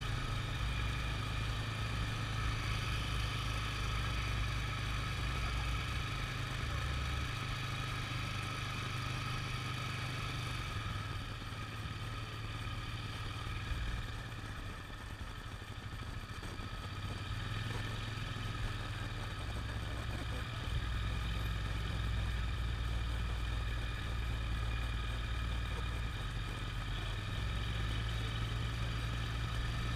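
A vehicle engine running at low speed: a deep steady rumble that swells and eases every few seconds, with a faint steady high drone over it.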